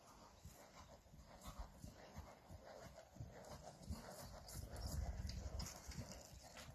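Hoofbeats of a ridden horse moving over a sand arena surface, a run of soft, irregular thuds that grow louder as the horse passes close about four to five seconds in.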